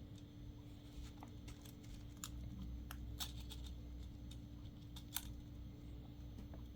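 Faint, irregular light clicks and taps of small phone parts and a tool being handled and pried during phone disassembly, the sharpest about five seconds in, over a steady low hum.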